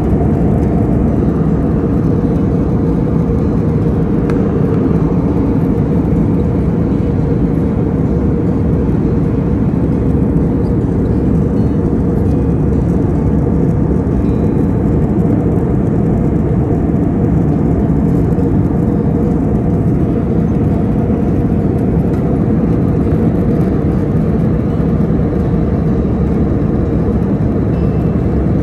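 Steady, loud jet airliner cabin noise in flight: engine and rushing-air noise, mostly low-pitched, with no change.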